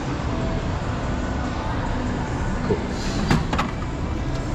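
Pokémon Center card vending machine working through a purchase, a steady running noise while it moves the order to the pickup hatch. Two sharp clicks come about three seconds in.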